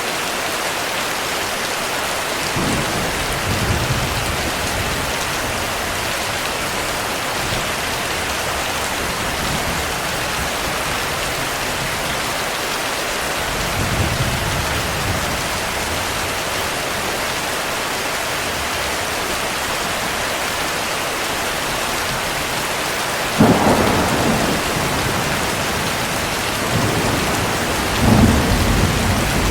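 Steady heavy rain with thunder rumbling several times: low rolls about three and fourteen seconds in, and two louder claps near the end.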